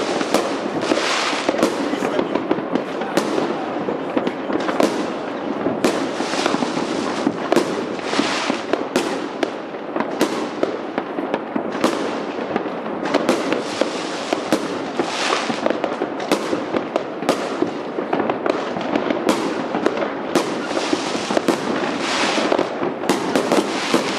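Fireworks going off without pause: a dense run of sharp bangs, often several a second, over continuous crackling.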